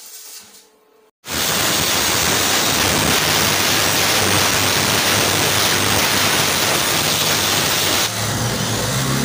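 Angle grinder grinding down a weld seam on a stainless steel sheet: a loud, steady grinding noise that starts suddenly about a second in. About eight seconds in it gives way to a handheld polisher running a buffing wheel over the steel, slightly quieter and with a low motor hum.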